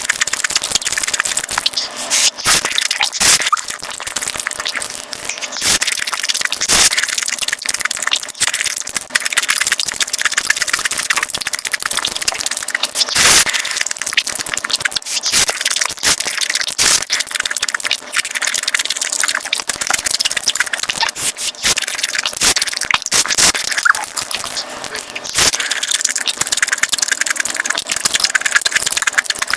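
Close-miked mukbang eating sounds, sped up: a dense run of crunching, smacking and wet chewing clicks.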